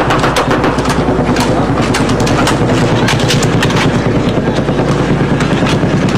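Rapid, irregular machine-gun fire, many sharp cracks in quick succession, over the steady drone of an aircraft overhead.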